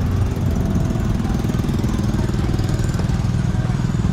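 A small engine running steadily close by, with a fast even putter.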